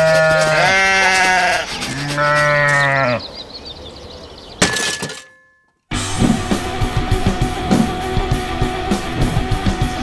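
Two long bleats, each rising and falling in pitch, then a single sharp knock about four and a half seconds in. From about six seconds, rock music with guitar and drums.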